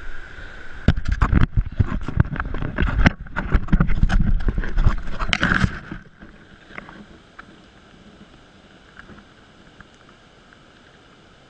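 A camera tumbling through floodwater and brush: a rapid jumble of knocks and scrapes against the housing over rushing water. About six seconds in it stops suddenly, leaving only a faint steady hiss with the odd tick as the camera comes to rest.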